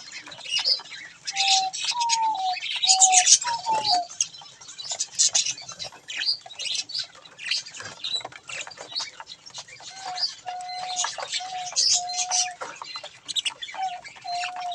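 A flock of budgerigars chattering and chirping continuously. Twice, a bird gives a run of short, level, lower-pitched whistled notes over the chatter, the first about a second and a half in and the second near the end.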